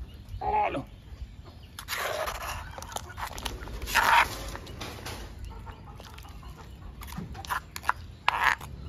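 Chickens clucking and calling a few times, loudest about four seconds in, with a metal spoon scraping and clicking against a stone mortar near the end.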